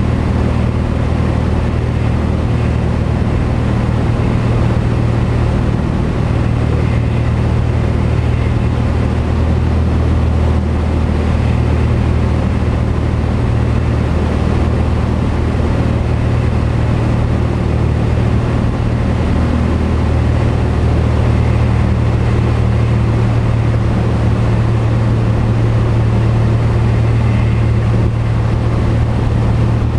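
Single-engine light aircraft's piston engine and propeller running steadily in cruise, a constant low drone with airflow noise, heard from inside the cockpit.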